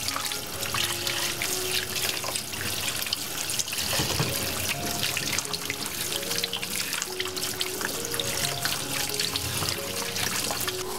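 Kitchen tap water running and splashing over cucumbers as they are rubbed clean by hand in a sink. Background music of single held notes plays over it.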